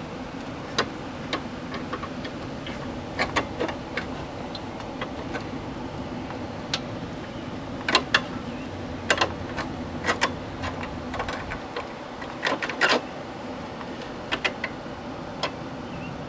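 Hand tools clicking and tapping against metal parts of a garden tractor while bolts are worked loose: irregular sharp clicks, some in quick clusters of two or three, over a faint steady hum.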